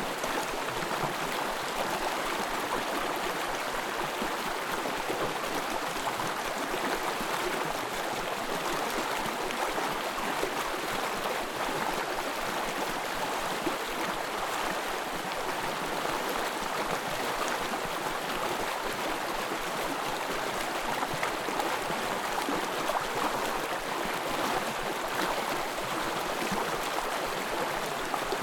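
Small forest stream babbling and trickling over stones, a steady even rush of water.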